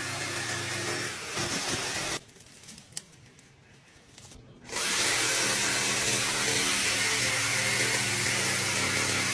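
Reciprocating saw running as it cuts through wood. It stops for about two and a half seconds a little after two seconds in, then starts again and runs steadily, a little louder.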